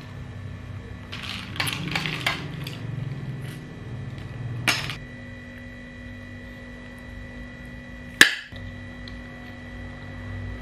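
A metal spoon knocking and scraping on a ceramic plate of food: a few quick clinks about a second and a half in, another near five seconds, and a sharp clink about eight seconds in, the loudest. A faint steady hum runs underneath.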